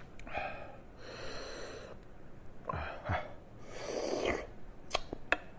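Close-miked mouth and breath sounds of a person eating lamb tail fat: several breathy sucking or sniffing swells, each under a second long, then two sharp clicks about five seconds in.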